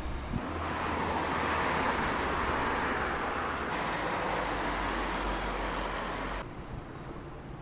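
Street traffic: a car passing on the road, with tyre and engine noise that swells and then holds steady before dropping away near the end.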